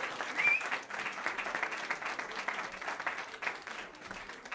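Crowd applause, dense clapping with a brief cheer about half a second in, fading away toward the end.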